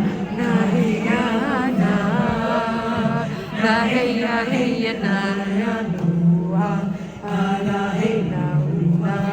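Music with voices singing together, like a choir chanting.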